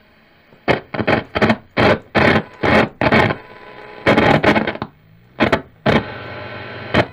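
1949 RCA 8TK29 television's loudspeaker putting out loud bursts of static, about two or three a second, as the front knob is turned, with a longer burst about four seconds in and a stretch of hum near the end.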